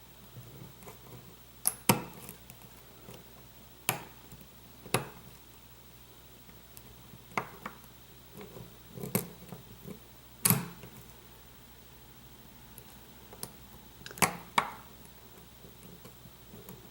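Lock picking in a pin-tumbler challenge lock: scattered sharp metallic clicks and taps of the pick and tension wrench against the pins and plug, some in quick pairs, a few with a brief ring.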